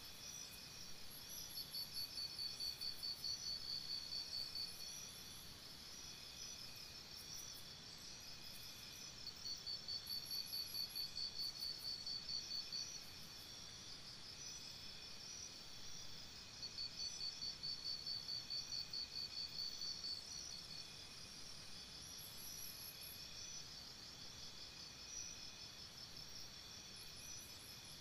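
Faint insect chirping, cricket-like: a steady high-pitched pulsed trill, with louder bouts of rapid pulsing about every seven seconds.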